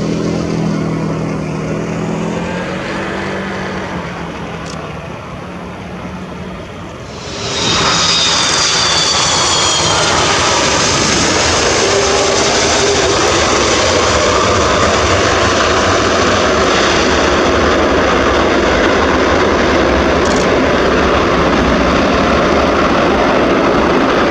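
Airbus A330 jet engines: a humming, slowly fading drone as the airliner comes in, then, about seven and a half seconds in, a sudden jump to a loud, steady rush of jet noise, with a brief high falling whine, as the plane rolls along the runway.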